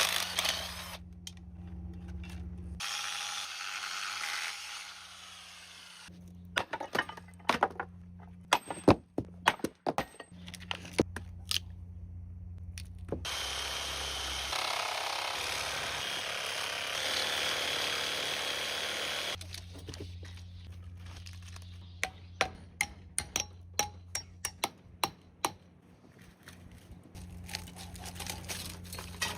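A power tool cutting into an industrial electric motor during scrapping for its copper, running in two stretches of several seconds each. Between the stretches come many sharp knocks and clanks of tools on metal, over a steady low hum.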